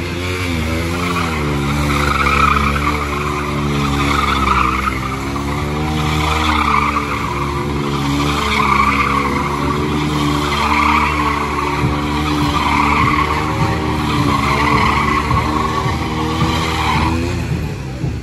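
Motorcycle burnout: the engine is held at high revs while the rear tyre spins and squeals against the paving, and the pitch wavers as the throttle is worked. The tyre squeal stops shortly before the end.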